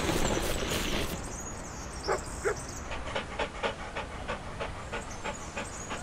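Cartoon dog sound effect: a breathy rushing noise in the first second, two short yips about two seconds in, then steady panting at about three breaths a second.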